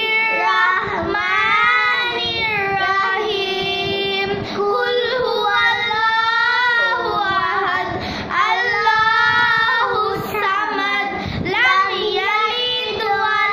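Two young girls reciting a Quranic surah together in a melodic chant, holding long drawn-out phrases with brief pauses for breath between them.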